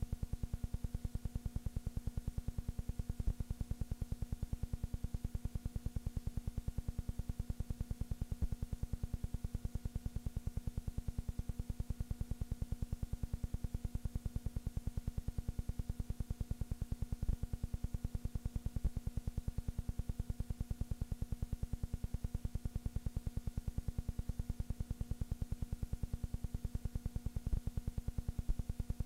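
Film projector running: a steady, rapid mechanical clatter over a constant low hum, with no sound from the game itself.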